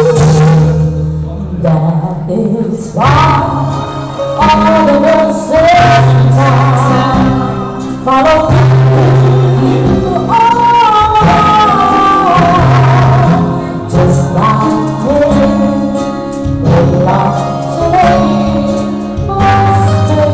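Woman singing a slow song into a microphone over keyboard accompaniment, the melody sliding between held notes over a changing bass line.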